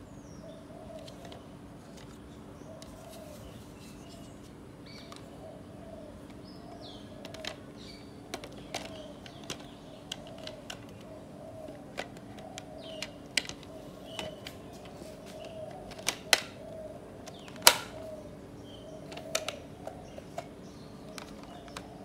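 Hard plastic parts of a vacuum cleaner clicking and knocking as they are handled and fitted back together: scattered sharp clicks, more frequent and louder in the second half. Under them runs a steady low hum.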